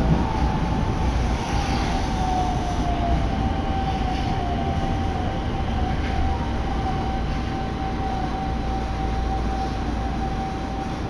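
Nagoya subway Higashiyama Line train heard from inside the car as it runs into a station: a steady low rumble with a thin electric whine that drops slightly in pitch over the first few seconds and then holds one steady note.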